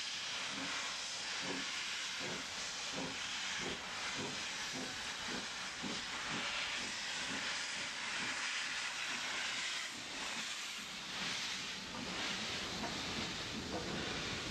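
Steam locomotive moving off from a platform: a steady loud hiss of steam, with a regular exhaust beat of about two strokes a second through the first half.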